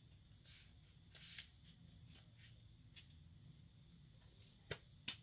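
Quiet handling of a CD and its jewel case: faint rustles, then two short, sharp clicks near the end.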